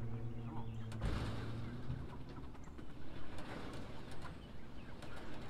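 Acoustic guitar music fading out about a second in, followed by outdoor ambience with birds calling.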